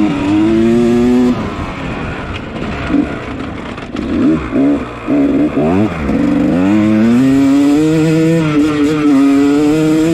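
Yamaha 250 dirt bike engine racing under throttle. It runs high, drops off after about a second, goes through several quick throttle blips in the middle, then climbs again and holds high and steady for the last few seconds.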